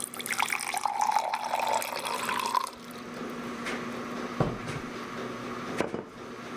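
Liquid poured into a drinking glass, splashing, with the pitch of the pour rising as the glass fills; the pour stops about two and a half seconds in. Two small sharp ticks follow, one near the middle and one near the end.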